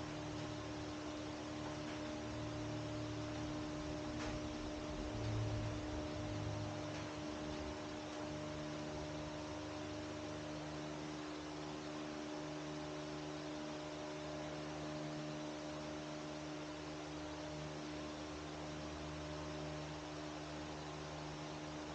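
A steady hum with two constant tones over a background hiss, and a faint click about four seconds in.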